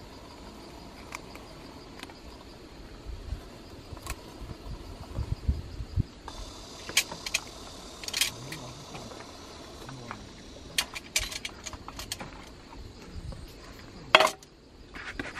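Handling sounds of a drip-coffee bag and a stainless-steel kettle: scattered light metal clicks and clinks, a few low thumps, and one sharp clink about 14 seconds in as the kettle is lifted off the gas stove by its handle.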